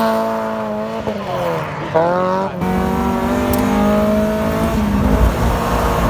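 Drift car engines at high revs. The first engine's pitch drops and then climbs sharply about two seconds in. An abrupt cut leads to another car's engine held at steady high revs, heard from inside the car.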